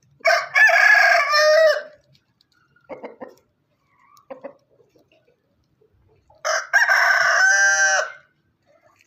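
Rooster crowing twice, about six seconds apart. Each crow is a short first note followed by a long held note, and a few faint short calls fall in between.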